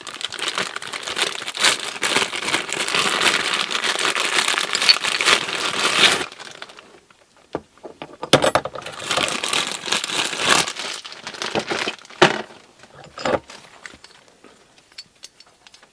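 Thin clear plastic bag crinkling and rustling as a tie-rod-end puller is unwrapped from it and the bag crumpled, in a long stretch and then a shorter one. A few light knocks follow near the end as the metal tool is handled.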